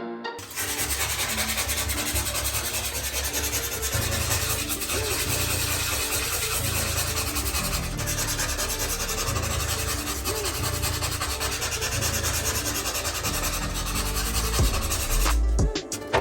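Sanding a chipped spot on a bathtub with coarse sandpaper: a steady, rough scratching that stops shortly before the end, where music comes in.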